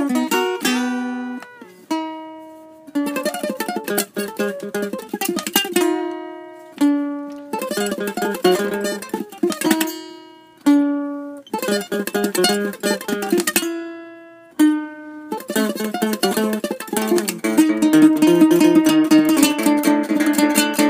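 Guitar and ukulele playing an instrumental passage: short runs of quick plucked notes, each phrase ending on a single note left to ring and fade, then busier, continuous playing over the last few seconds.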